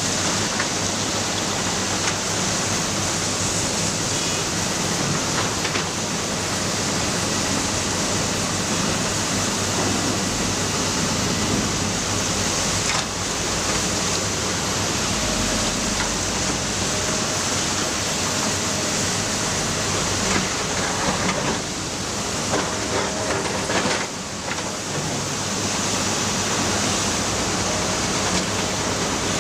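Matador ME315 crawler excavator's diesel engine running steadily under a dense rushing noise.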